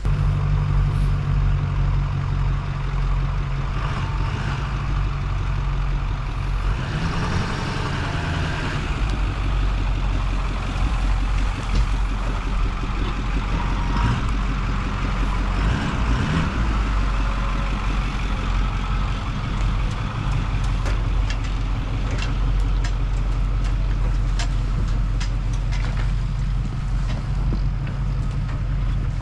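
Truck engine running steadily as the truck drives off at low speed, with a brief change in engine tone about seven seconds in.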